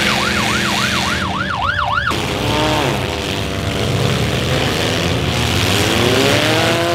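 A siren yelping, its pitch sweeping up and down about three times a second, cuts off abruptly about two seconds in. Car engines run after it, one revving down and then revving up near the end.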